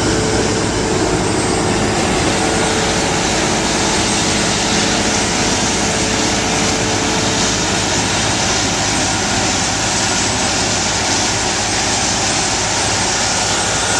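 A large engine running steadily: a loud, constant drone with an even hum underneath.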